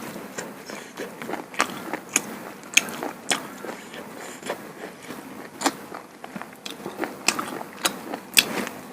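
A person chewing food close to the microphone: irregular wet mouth clicks and smacks, a few a second.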